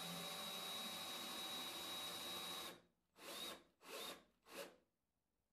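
Power drill spinning a 5 mm-lead ball screw at about 3000 rpm, driving a heavy 80 kg CNC gantry along its Y axis: a steady whir with a high whine. It stops abruptly after a few seconds, followed by three short bursts of the drill about half a second apart.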